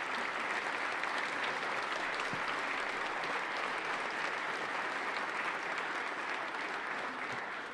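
Chamber audience applauding steadily after a line in a speech, the clapping fading away near the end.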